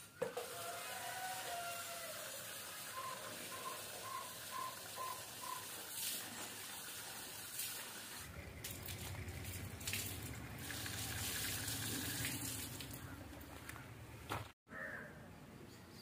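Water running from an outdoor standpipe tap into a plastic jug, a steady rush that takes on more low rumble about halfway through. It cuts off abruptly near the end.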